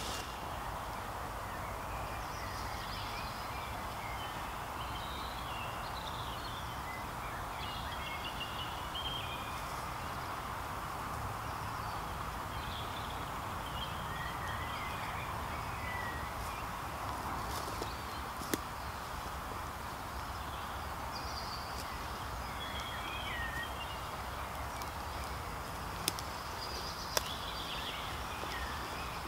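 Birds singing in open countryside, short scattered phrases over a steady outdoor background hiss and low rumble. A few sharp clicks come past the middle and near the end.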